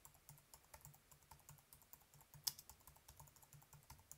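Typing on a computer keyboard: a quick, uneven run of faint key clicks as a search term is typed in, with one sharper, louder keystroke a little past halfway.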